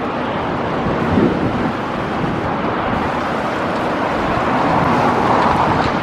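Strong wind buffeting the camera microphone: a steady rushing roar with gusts swelling about a second in and again near the end.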